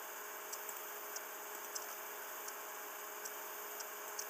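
Quiet room tone: a steady microphone hiss with a faint low hum, and a few faint, short ticks scattered at irregular intervals.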